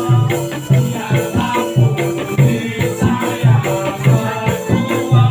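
Music with a steady beat of percussive strokes about twice a second over repeating bass notes.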